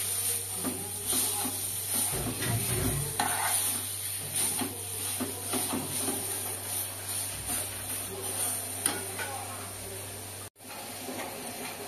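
Browned meat sizzling in an aluminium pan on a gas stove while a metal spoon stirs and scrapes it, with frequent clicks of spoon against pan. The sound cuts out for a moment about ten and a half seconds in, then the sizzle goes on more quietly.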